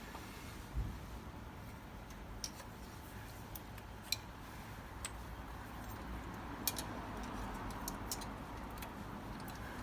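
Scattered light clicks and taps from hands working at the car's vacuum hoses, over a faint steady background hum.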